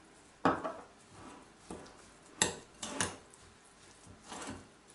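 A metal spoon stirring a thick ground-hazelnut filling in a glass bowl, scraping and clinking against the glass a few times amid softer rubbing.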